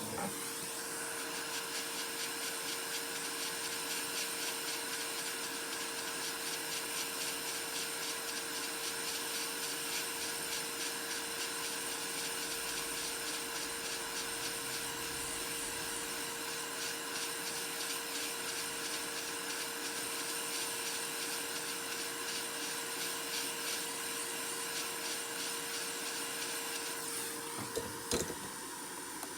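Small electric blower running steadily with a hiss and a constant hum. It shuts off about 27 seconds in, followed by a few sharp clicks.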